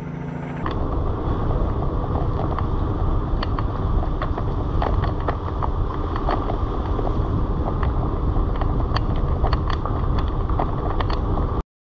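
Car rolling slowly along a gravel road: a steady low rumble with scattered small clicks and pops from the tyres on the loose surface. It cuts off abruptly near the end.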